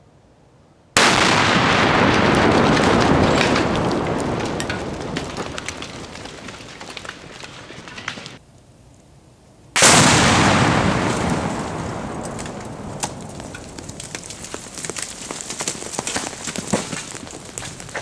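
Two sudden loud explosion booms from about 50 pounds of binary explosive (Tannerite) detonating under a car, one about a second in and one near the middle. Each fades away over several seconds, with scattered sharp crackles and thuds of debris after the second.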